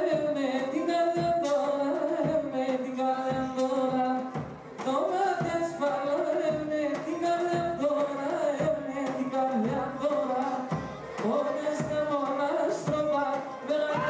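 Live Pontic folk dance music led by a bowed Pontic lyra (kemençe), playing a short repeating melody with a steady pulse.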